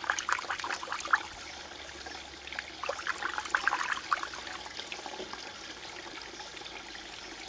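Spring water trickling and gurgling in a shallow stream, with quick clusters of small bubbling plinks in the first second and again around the third and fourth seconds, settling into a gentler steady trickle.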